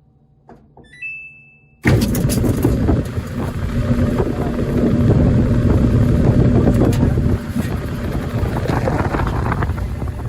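Samsung clothes dryer being tested after repair: a control-panel beep, then about two seconds in the drum motor and blower fan start suddenly and keep running with a loud, steady rumbling rush. The dryer that would only click and not start now runs again.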